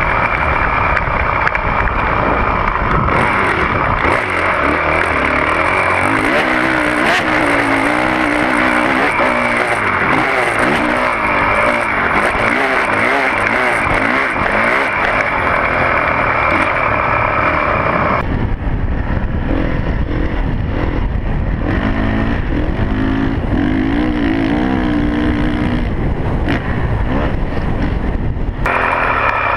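Dirt bike engine being ridden hard, its pitch rising and falling with the throttle through the corners and straights. Heavy wind noise on the microphone rushes over it, easing about two-thirds of the way in and coming back near the end.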